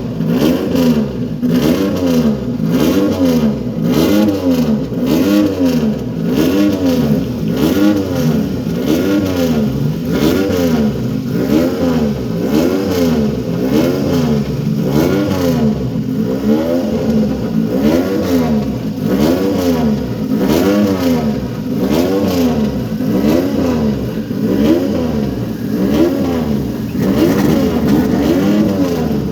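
Several Triumph three-cylinder motorcycle engines revving together, the throttles blipped up and down over and over, about once a second.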